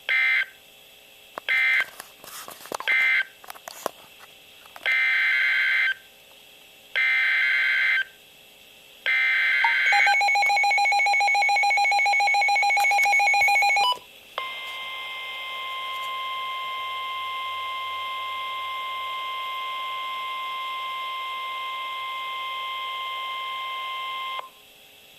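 NOAA Weather Radio Emergency Alert System tones: three short data bursts closing the previous message, then three longer SAME data bursts carrying the header of the next alert. A few seconds of rapidly pulsing electronic beeping follow, then the steady 1050 Hz warning alarm tone held for about ten seconds.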